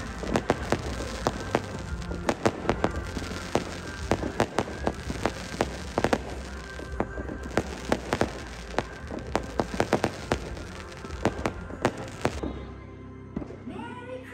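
Show music playing under a rapid, irregular string of sharp pops and cracks. About twelve seconds in the music stops and crowd voices begin.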